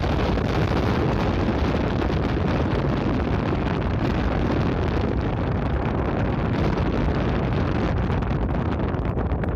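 Steady wind buffeting the microphone over the low rumble of a sightseeing icebreaker ship under way.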